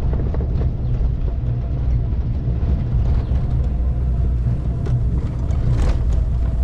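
Safari vehicle driving along a forest track: a steady engine and road rumble.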